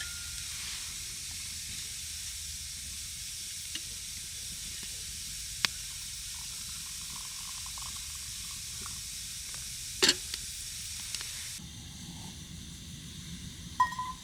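A steady sizzling hiss broken by three sharp clicks, which cuts off abruptly near the end.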